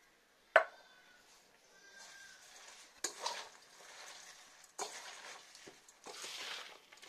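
Hands tossing and squeezing chopped amaranth leaves, cabbage and onion in a steel mixing bowl: a rustling of leaves with soft knocks against the bowl. This follows a sharp metallic clink with a short ring about half a second in.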